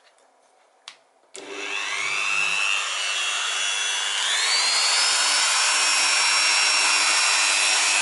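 A Dremel rotary tool fitted with a 409 cut-off wheel is switched on about a second in, after a sharp click. Its motor whine climbs as it spins up, steps higher in pitch around four seconds in, then runs steady at high speed.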